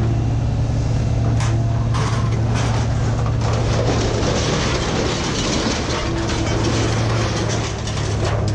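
A large engine running steadily, with rattling and knocking over a constant low hum.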